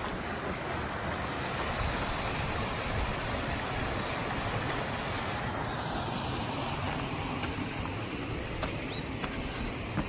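Small waterfall splashing into a stream, heard as a steady, even rushing noise.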